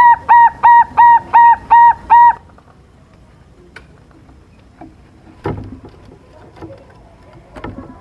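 Young silver-morph zebra dove (perkutut) singing a run of short, clear, rising-and-falling cooing notes, about three a second, which stops a little over two seconds in. After it come only a few soft knocks.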